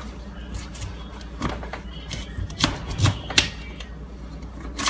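Paring knife slicing through a raw sweet potato, its blade knocking on the cutting board in about half a dozen sharp clicks at uneven intervals.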